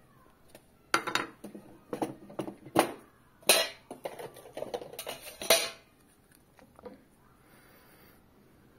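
Sharp clicks and knocks of hard plastic items, a small plastic cup and an opened shotgun shell hull, being picked up and handled against a wooden table, about a dozen over some five seconds.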